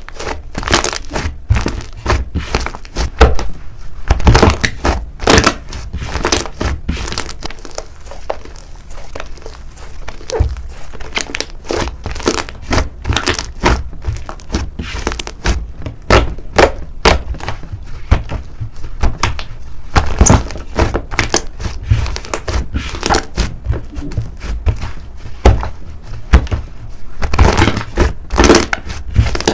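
Thick white slime being squeezed and kneaded by hand, giving a dense, irregular run of sticky crackles, squelches and pops.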